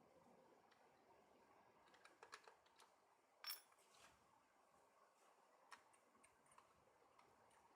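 Near silence, with a few faint scattered clicks and taps, the loudest about three and a half seconds in.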